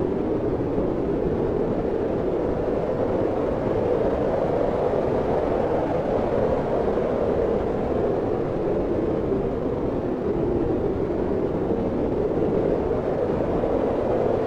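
Steady wind noise, a low rushing that swells and eases gently every few seconds.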